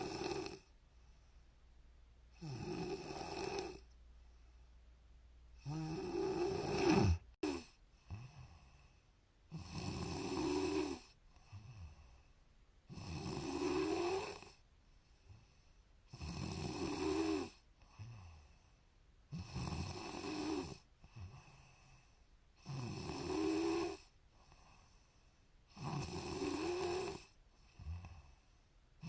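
A woman snoring steadily in her sleep: a rasping snore about every three seconds, each lasting a second or so, with quiet breathing between.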